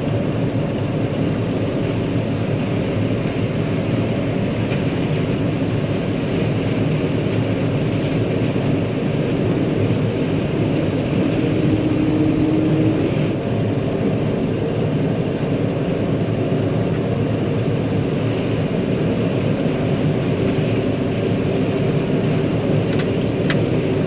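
John Deere 9500 combine running steadily while harvesting corn: a loud, unbroken engine and machine drone made of several steady low tones. A brief higher steady tone joins it about eleven seconds in.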